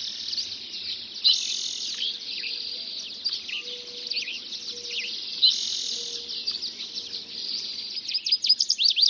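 Dawn chorus: many songbirds singing at once, overlapping. A buzzy trill stands out about a second in and again a little past the middle. Rapid runs of sharp falling notes come near the end.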